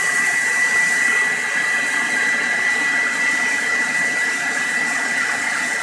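Handheld hair dryer running steadily, its airflow blowing onto a fidget spinner, with a steady high-pitched whine through the rush of air.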